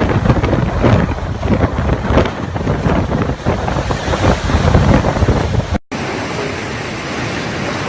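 Hurricane wind buffeting the microphone in loud, uneven gusts. It stops abruptly about six seconds in, and after a brief break a steadier rushing noise follows.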